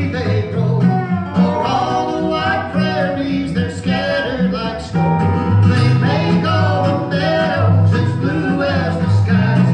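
Live acoustic country band: a resonator guitar played lap-style with a slide bar, an acoustic bass guitar and a strummed acoustic guitar, with a woman and a man singing.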